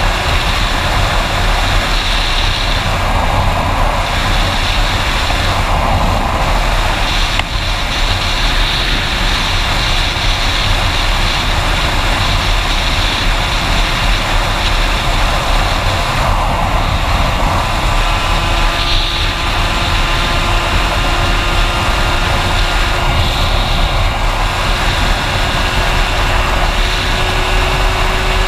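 Aprilia RS two-stroke AM6 engine with an 86 cc aluminium cylinder kit, ridden at steady cruising speed, its drone under heavy wind noise on a helmet-mounted camera. The engine note climbs slightly in pitch near the end.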